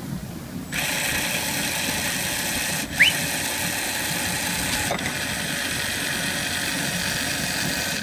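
LEGO WeDo electric motor whirring as it drives a rubber-band pulley and gearbox that close and reopen the birdhouse door. It starts about a second in and breaks off briefly twice, with a short rising squeak at the first break about three seconds in.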